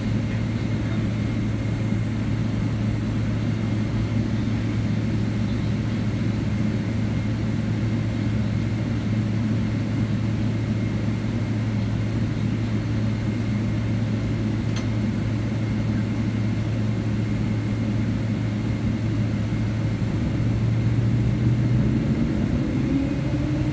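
Cabin noise of a Boeing 777-200LR taxiing, its GE90 turbofan engines at idle: a steady low hum with a faint high whine. It swells slightly near the end, where a rising tone comes in.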